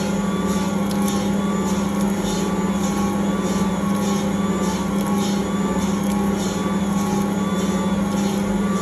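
Ankarsrum Original Assistant stand mixer running steadily as its rotating stainless steel bowl kneads pizza dough: a constant motor hum with a soft pulse repeating about twice a second.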